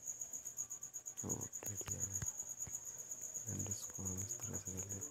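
A cricket chirping in a steady, fast, high-pitched pulsing trill.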